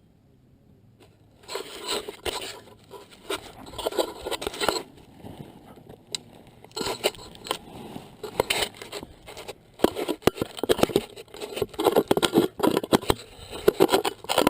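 Close scraping and rustling with dense irregular clicks, coming in patches after a brief quiet start.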